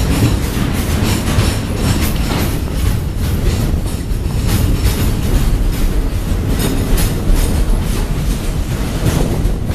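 Loaded container flat wagons of a freight train rolling past, their wheels clacking over the rail joints again and again over a heavy, steady rumble.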